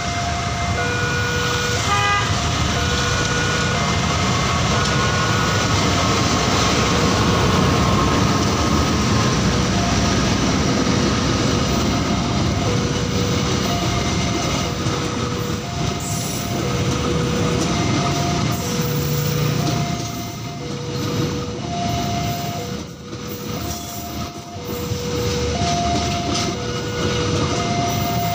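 Argo Bromo Anggrek express train passing over a level crossing: a loud, steady rush of wheels on rail as the coaches go by. Behind it the crossing's warning signal sounds, two tones alternating evenly throughout.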